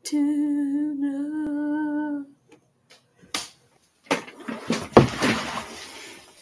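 A person humming one steady held note for about two seconds. A few seconds later comes a clattering crash, loudest about five seconds in, as a person falls out of an office chair onto the floor.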